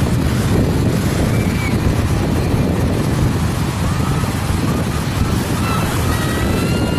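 Wind buffeting the microphone over the steady rush of breaking ocean surf, with a few faint high calls in the last few seconds.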